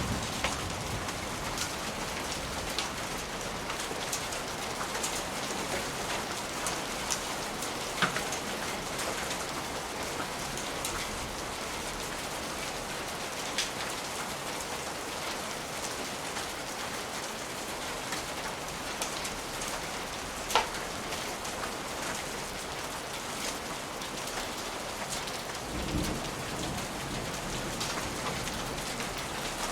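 Steady rain, with scattered sharp crackles and pops from a fireplace and a brief low rumble of distant thunder near the end.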